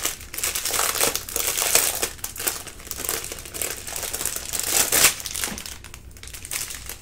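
Thin clear plastic packaging crinkling and rustling in irregular crackles as hands work a strip of small bagged diamond-painting drills out of its plastic sleeve.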